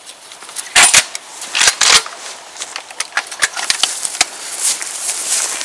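Sharp clicks and knocks of a shotgun being loaded and its cartridges handled: two loud pairs of clicks about a second in and just under two seconds in, then lighter ticks.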